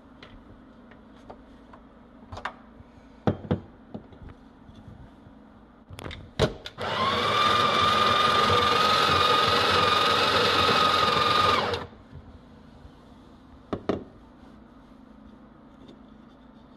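The built-in conical burr grinder of a Breville Barista Express espresso machine running, grinding coffee beans straight into the portafilter, with a steady whine; it starts about seven seconds in and cuts off sharply after about five seconds. Several sharp clicks and knocks come before the grinding and one after.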